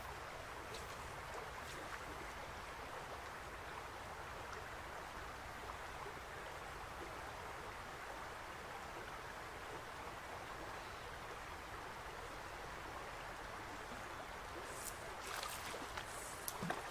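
A small river flowing: a steady, even rush of water, with a few faint clicks near the end.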